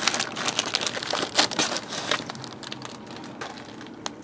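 Packaging crinkling and rustling as it is handled and an item is pulled out. A dense run of small crackles lasts for about the first two and a half seconds, then gives way to fainter, scattered handling ticks.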